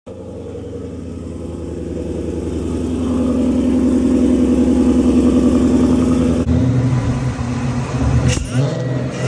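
Supercharged Ford Mustang's engine running, its steady note growing louder over about six seconds. After a cut, the engine sound turns uneven, rising and falling.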